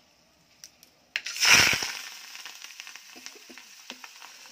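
Fresh curry leaves dropped into a small pan of hot tempering oil with cumin, mustard seeds and dried red chillies: a sudden loud spluttering crackle about a second in that quickly dies down into a steady sizzle with scattered pops.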